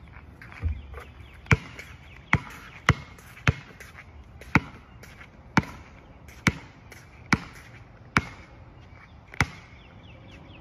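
Basketball dribbled slowly on an asphalt court: about eleven single sharp bounces, roughly one a second at an uneven pace.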